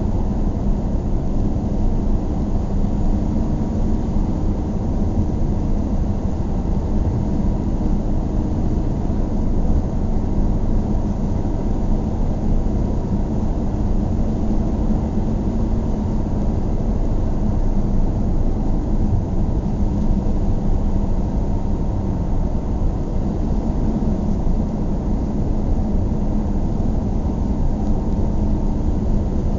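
Car driving steadily: an even, low rumble of engine and tyre noise with a faint steady hum, not changing in pace.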